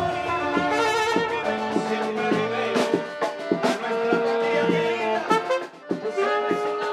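Latin dance music from a small band playing accordion and saxophone, with held melody notes over a steady beat and a brief break just before the end.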